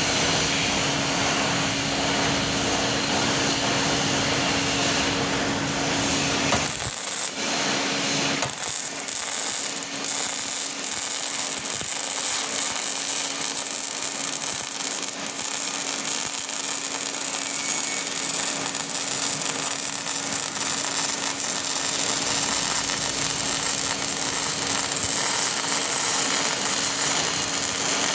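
MIG welder arc running a continuous bead on a steel frame, a steady frying crackle.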